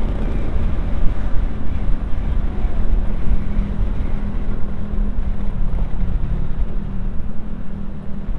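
Motorcycle engine running steadily on the road, a continuous low drone with road and wind noise.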